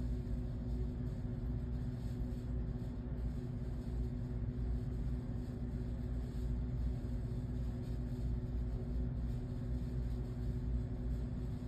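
A machine running steadily: a low, even hum with a constant drone.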